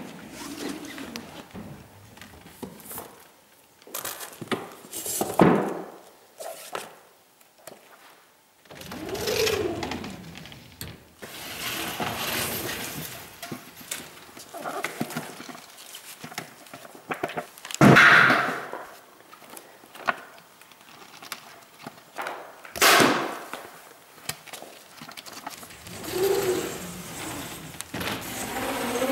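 Irregular knocks, thuds and rustling from books and wooden shelves being handled and a glass-fronted bookcase being pushed, with a few short sounds that slide downward in pitch.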